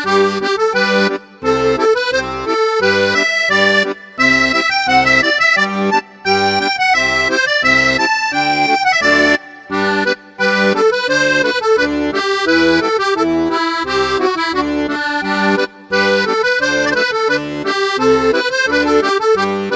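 Background music led by an accordion, an upbeat bouncy tune with a steady beat and short breaks between phrases.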